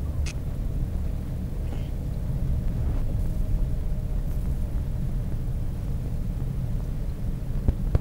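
Steady low rumble of a car driving, heard from inside the cabin, with a faint steady hum and a couple of light clicks.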